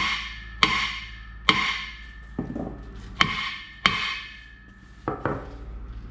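Hammer blows on metal, about five loud strikes with uneven gaps, each ringing out and fading, then two lighter taps near the end, over a steady low hum.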